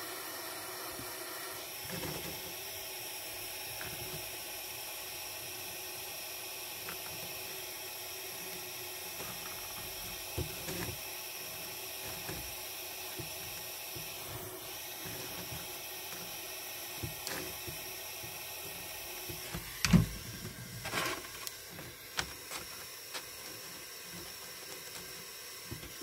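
Steady hiss of a small gas soldering torch's flame, with a few light clicks and one sharper knock about twenty seconds in.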